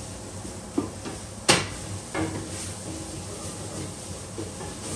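A wooden spoon stirring food in a large stainless steel stockpot on a gas hob, with a sharp metallic knock about one and a half seconds in and a lighter one just before it. Softer scrapes follow over a faint sizzle of frying.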